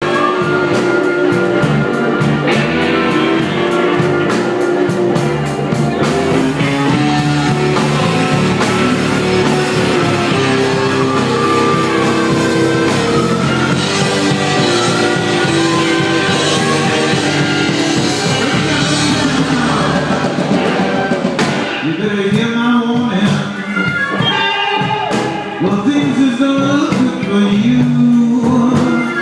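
Live blues band playing, drums driving a steady beat under pitched instruments and a voice; a little past two-thirds through the drumming thins out and bending, wavering melodic lines come forward.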